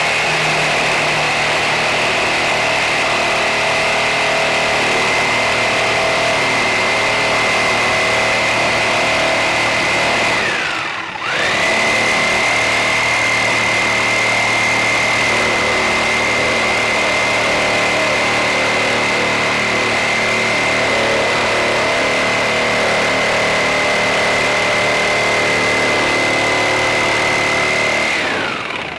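Electric power saw running with a steady high whine as it cuts boards. About ten seconds in it winds down, starts straight back up, then winds down again near the end.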